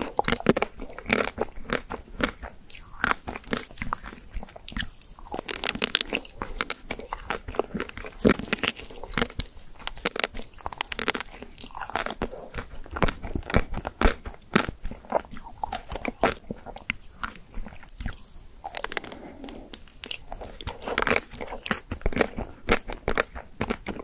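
Close-up crunchy bites into a white-coated ice cream bar, the hard coating crackling, with chewing throughout.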